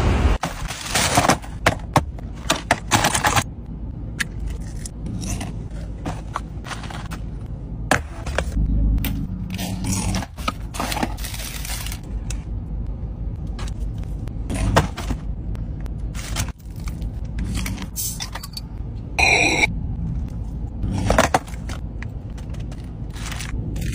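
Close-up rustling, crinkling and scraping of paper and plastic fast-food wrappers as the food is handled, with many sharp crackles. A brief high squeak comes a little past three-quarters of the way through.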